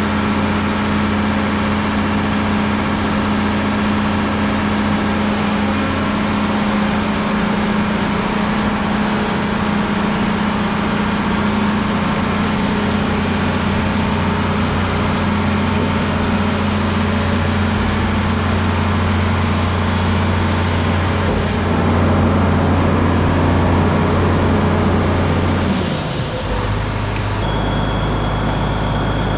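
Combine's diesel engine running steadily, with a faint high whine over it. About 26 seconds in, the engine and whine drop in pitch together, and it settles into a lower steady hum.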